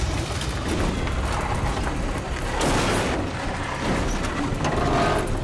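Heavy tow truck's diesel engine labouring under load as it winches a frozen-in semi out of a ditch, with a dramatic music score and booming hits laid over it.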